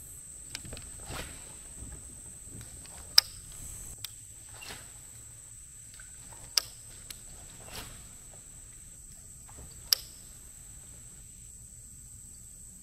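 Steady high-pitched chorus of insects, crickets or similar, droning without a break. Over it come a few sharp clicks, the three loudest about three seconds apart, with lighter ticks between them.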